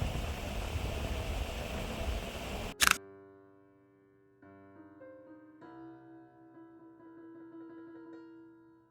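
A steady rushing noise for the first few seconds ends suddenly with a short sharp click, followed by soft keyboard music with held piano-like notes.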